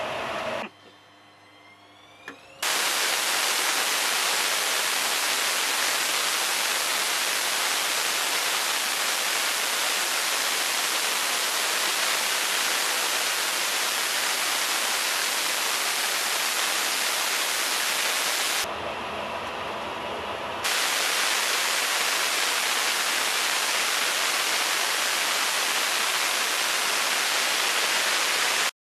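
F-15E's Pratt & Whitney F100 turbofan running at full afterburner in an enclosed engine test cell: a loud, steady hissing roar. It is preceded by a quieter whine rising in pitch, and about two-thirds of the way through it turns muffled and quieter for about two seconds.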